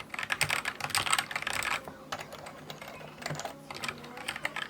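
Typing on a Keychron K6 mechanical keyboard with red linear switches: a quick run of keystrokes, a short pause about two seconds in, then slower, scattered keystrokes.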